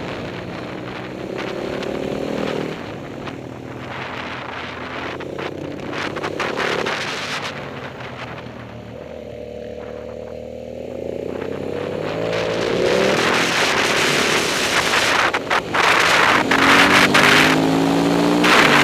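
Onboard motorcycle engine revving up and down through a series of corners. It eases off and quietens about halfway, then pulls hard with rising revs. Wind rushing over the microphone grows loud as the bike speeds up near the end.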